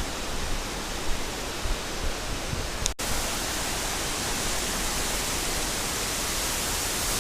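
Steady rushing of mountain river water, the Chegem river and the waterfalls that feed it, heard as an even hiss. The sound cuts out for an instant about three seconds in and then carries on.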